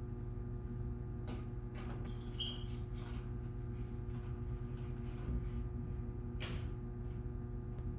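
Light bulb being screwed into an overhead socket with a long bulb-changer pole: a few faint scrapes, clicks and short squeaks, with a louder scrape about six and a half seconds in. A steady low hum runs underneath.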